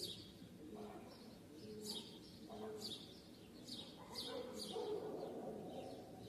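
Songbirds chirping: short, high chirps that fall in pitch and come every second or so, over a lower, steadier background sound.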